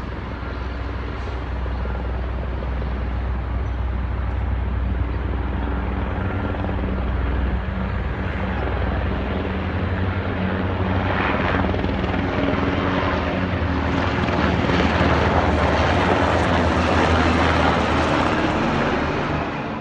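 Black Hawk-type (H-60) military helicopter flying over, its rotor and turbine sound growing steadily louder as it approaches and loudest near the end as it passes close.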